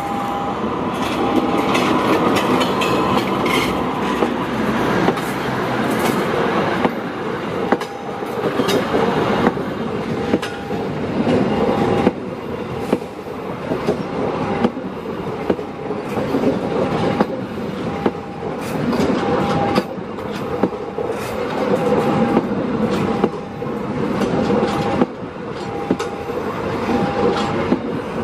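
A train running past close by, its wheels clattering rhythmically over the rail joints with a steady rumble throughout. A short tone repeats about every second and a half alongside it.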